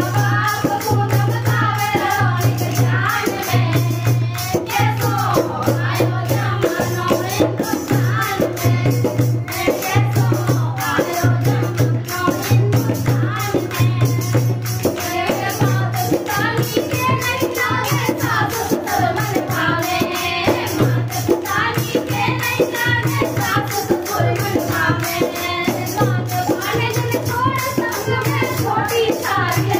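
Women singing a Hindi devotional bhajan together, with hand claps and a low, regular percussion beat keeping time.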